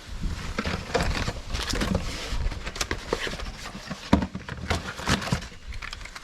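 Irregular clicks, knocks and rustles of hands handling small parts and packaging, over a low rumble. This is most likely the new spark plug being fetched out of the service kit.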